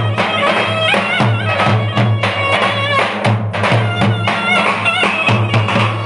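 Turkish clarinet playing a fast, heavily ornamented folk melody with trills over two davul bass drums, beaten in a steady driving rhythm.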